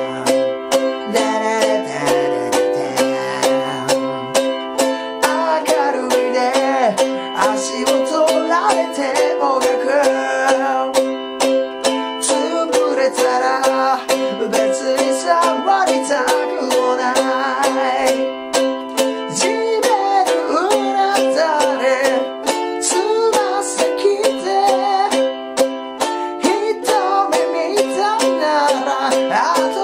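Soprano ukulele strummed in a fast, steady rock rhythm, opening with an instrumental interlude on Am, G7 and C. A man's voice comes in singing along from about five seconds in, over chord changes of Am–G7–C and Dm–G7–C.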